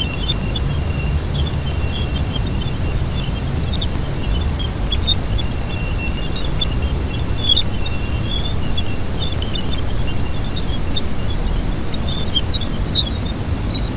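Jupiter's radio and plasma emissions, recorded by a space probe and converted to sound: a deep steady rumble with many short high chirps and a thin steady high tone above it.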